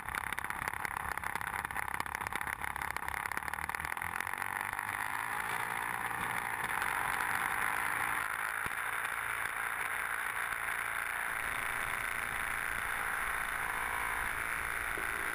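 OS Max 70 four-stroke glow engine of an RC Piper Pawnee running steadily, heard close up from on board as the plane rolls over grass and takes off. It gets a little louder about seven seconds in.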